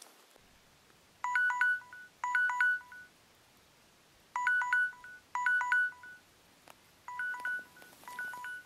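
Smartphone countdown-timer alarm going off as its one-minute countdown runs out: bursts of short electronic beeps stepping between two pitches, the bursts coming in pairs about a second apart, three pairs in all.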